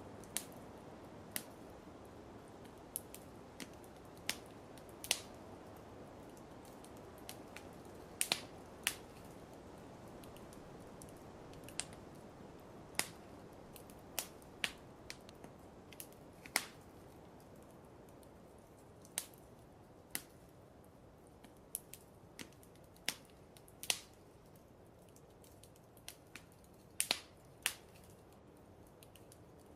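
Wood fire crackling in a fireplace: irregular sharp pops, roughly one a second, over a soft steady hiss.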